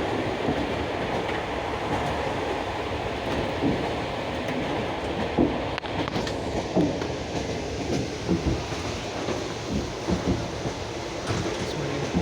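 Passenger train carriage running along the track: a steady rolling rumble with irregular knocks of the wheels over the rail joints.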